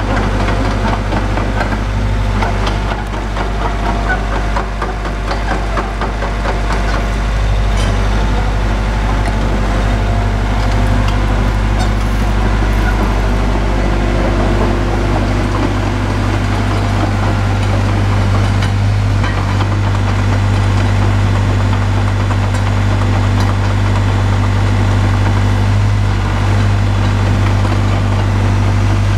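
Boart Longyear DB520 crawler drill rig's engine running steadily: a constant low hum that holds level throughout.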